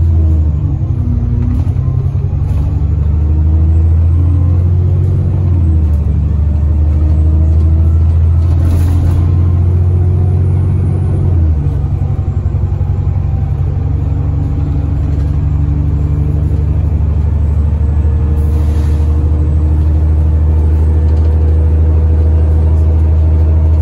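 Alexander Dennis Enviro 400 double-decker bus heard from inside the lower saloon while driving: a loud, steady low engine rumble. The engine note drops suddenly about halfway through, and a faint whine rises slowly through the second half.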